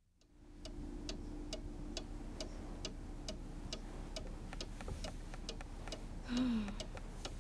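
Steady, even ticking, a little over two ticks a second, over a low hum, with a brief falling tone about six seconds in.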